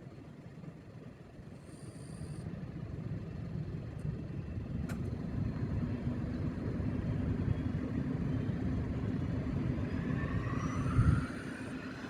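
Small propeller airplane's engine, a low drone that grows steadily louder, with a rising whine in the last couple of seconds and a brief low thump about eleven seconds in.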